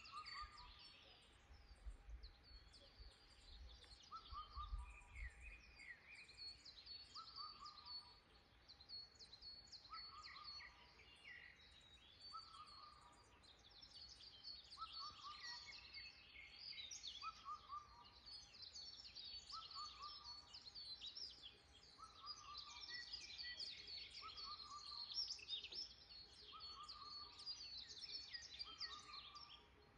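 Faint chorus of woodland birds chirping and singing, with many overlapping high chirps. One lower call, a short falling phrase, repeats about every two and a half seconds throughout.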